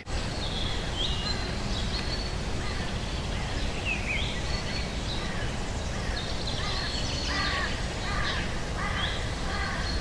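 Wild birds calling over a steady outdoor background hiss: scattered short, high chirps and slides, then a run of lower calls in the last few seconds.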